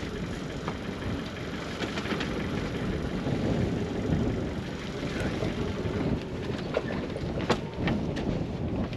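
Wind buffeting the microphone as a steady, uneven low rumble, with a few sharp knocks, the loudest about seven and a half seconds in.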